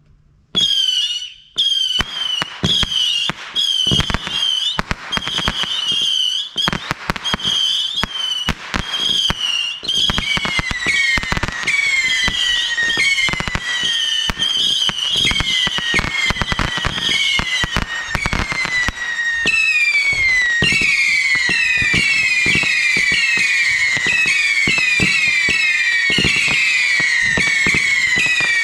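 Consumer fireworks firing in rapid succession: sharp pops and bangs mixed with short whistles that fall in pitch, one after another. From about ten seconds in the whistles come faster and overlap, and from about twenty seconds in they merge into a dense, continuous whistling barrage.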